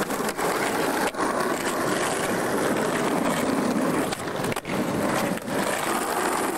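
Skateboard wheels rolling on concrete, a steady rolling noise close to the board, with brief breaks about a second in and again about two-thirds of the way through.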